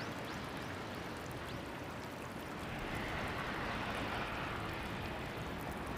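Steady hiss of rain, growing a little louder about halfway through.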